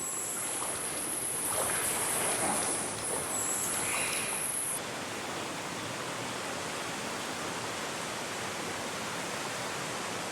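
River water rushing steadily. For the first five seconds or so a high, steady buzz sits over it, then cuts off abruptly.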